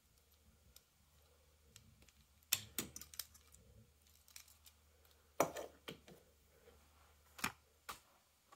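Hot Wheels die-cast toy car being handled and set down on a wooden desk: scattered light clicks and knocks in a few clusters, the loudest a little past halfway.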